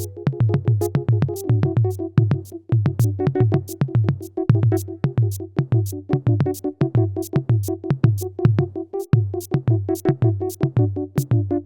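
Electronic instrumental music made in GarageBand: a steady drum-machine beat of about three hits a second under a sustained synthesizer chord.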